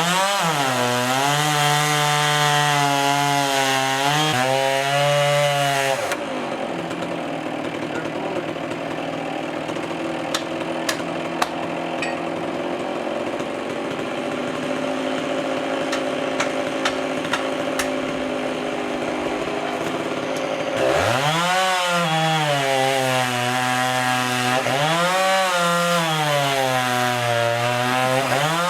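STIHL two-stroke chainsaw revving up and cutting wood, its engine pitch sagging and recovering as the chain bites. It drops back to a quieter, steadier running with a few small clicks for about fifteen seconds. Near the end it revs high and cuts again.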